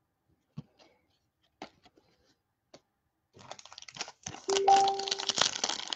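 A few soft clicks of cards being handled. Then, from about three seconds in, a foil trading-card pack wrapper is torn open and crinkled. Partway through the tearing, a computer gives a steady chirp lasting about a second.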